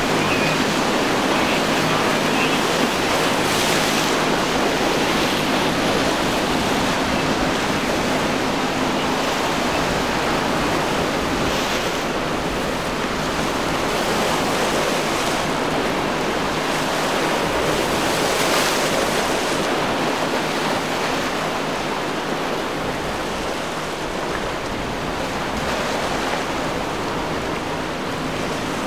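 Rough surf and breaking waves churning through an inlet, with wind on the microphone, a few louder surges of crashing water and a faint steady low hum underneath.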